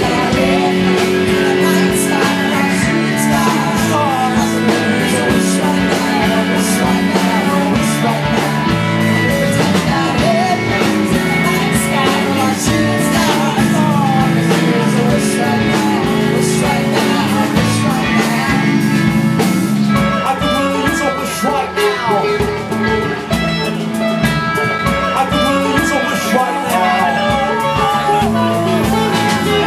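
Live band music: guitar, bass and drums playing steadily, with some singing.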